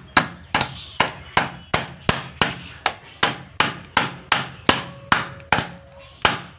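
Light hammer taps striking in a steady rhythm, about two and a half blows a second, while a part is seated in place on the kitchen range hood fan motor.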